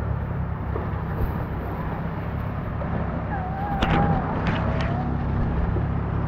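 Steady low outdoor rumble of wind buffeting the camera microphone, with a low hum underneath. A few sharp handling clicks come about four seconds in, with a brief wavering high tone around them.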